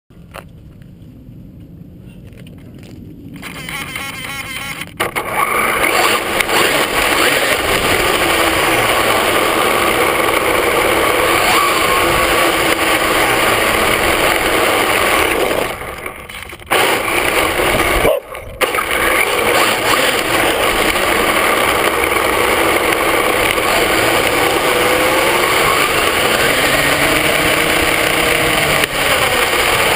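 HPI Mini Trophy RC truck heard from on board while driving fast on asphalt. Its VXL-3s brushless electric motor whines, rising and falling in pitch with the throttle, over gear and tyre noise. The sound is quieter for the first few seconds and builds to full level about five seconds in, then briefly drops away twice, around sixteen and eighteen seconds in.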